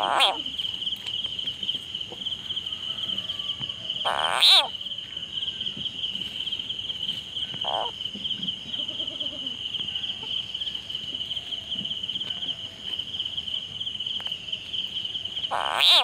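A frog caught in a snake's jaws gives short, loud distress cries: one at the start, one about four seconds in, a fainter one around eight seconds and another near the end. Behind them runs a steady, high-pitched cricket chorus.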